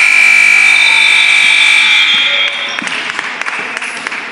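Gym scoreboard buzzer sounding one long steady blast of about two and a half seconds, then scattered knocks of play on the court.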